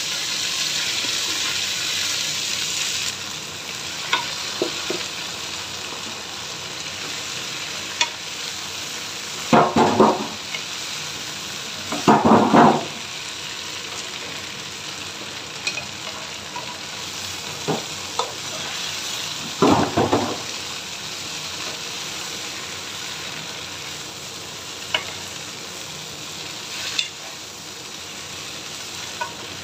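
Water spinach (kangkung) sizzling as it hits a hot wok of fried dried shrimp. The sizzle is loudest for the first three seconds, then settles to a steady sizzle while wooden spatulas stir and toss the greens, with three louder rustling bursts of tossing and a few light knocks of the spatula on the pan.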